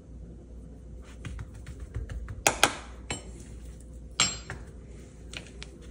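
Kitchen dishes and utensils clinking and knocking as they are handled: a few light taps, two sharp clinks about two and a half seconds in, and a ringing knock about a second and a half later.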